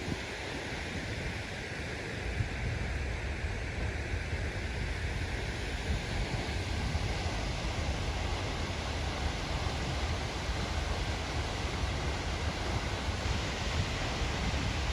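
Steady rushing noise of a waterfall, with an unsteady low rumble underneath.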